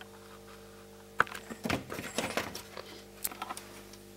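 Light clicks and scraping ticks of multimeter probe tips being set against the pins of a TV mainboard's flash chip, over a faint steady hum.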